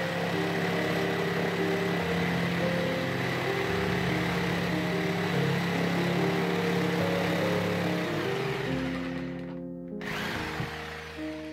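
Black & Decker jigsaw running and cutting through white-faced chipboard: a steady hiss with a thin high tone, over background music. The saw noise fades out about nine seconds in.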